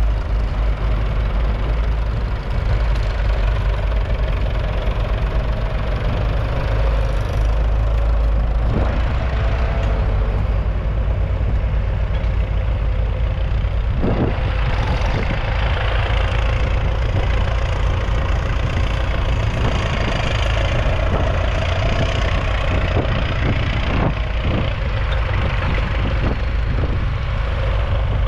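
Leyland 802's 3.8-litre four-cylinder diesel engine running steadily, with a few sharp clunks along the way.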